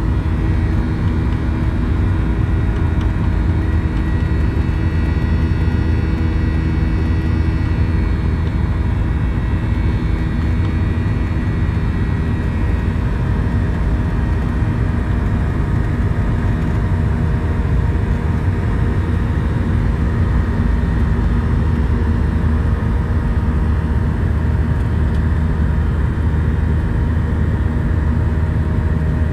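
Boeing 737-800 cabin noise during takeoff and climb: the CFM56 engines at high thrust and the rushing airflow give a loud, steady drone with a deep rumble and a few steady tones over it.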